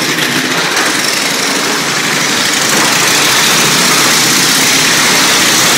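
Motorcycle engine running as a rider circles the wooden wall-of-death drum, growing louder about three seconds in.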